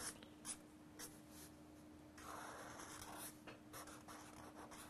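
Faint scratching of a pen drawing lines on paper: a few short strokes, with one longer stroke about two seconds in.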